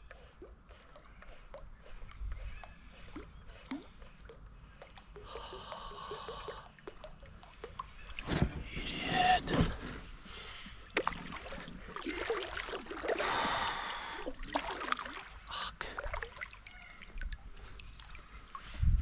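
Kayak paddle strokes: water splashing and dripping off the blade, with a few light knocks against the hull, in three louder stretches.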